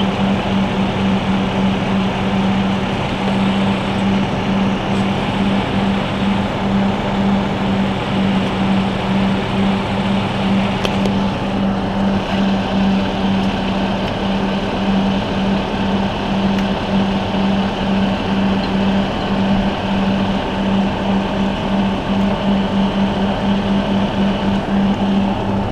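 Ladder truck's engine running steadily, with an even pulsing hum, while the aerial ladder is worked.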